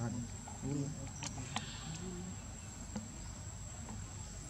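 Steady high-pitched insect drone, with two faint clicks between one and two seconds in.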